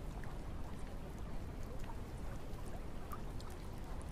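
Steady rain: an even hiss with scattered faint drop ticks.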